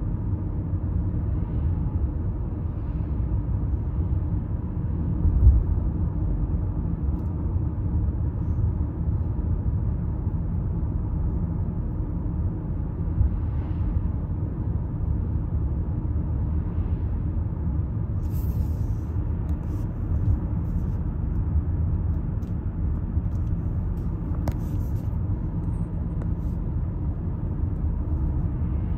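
Steady low rumble of a car's engine and tyres on the road, heard from inside the cabin while driving, with a brief low thump about five seconds in.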